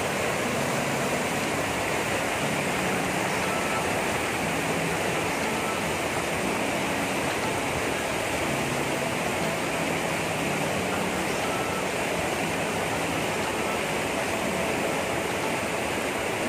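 River water spilling over a low stepped concrete weir and churning over rocks below: a steady, unbroken rush of white water.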